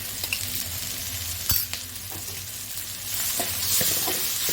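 Onions and green chillies sizzling in hot oil in a pan while being stirred with a spoon, with one sharp knock of the spoon against the pan about a second and a half in. The sizzle grows louder from about three seconds in.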